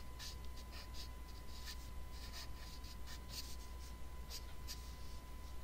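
Pencil scratching on paper in short, irregular strokes as a line drawing is sketched.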